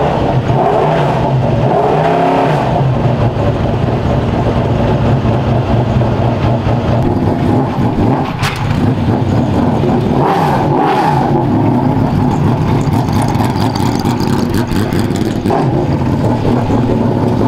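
2016 Ginetta LMP3's Nissan quad-cam V8 running at idle, rising in pitch under throttle about a second in and again around ten seconds in. A single sharp click comes a little past eight seconds in.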